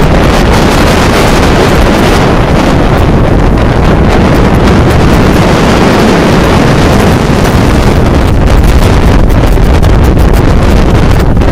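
Strong wind, about 25 knots over the deck of a sailing yacht, buffeting the microphone in a loud, steady rumble.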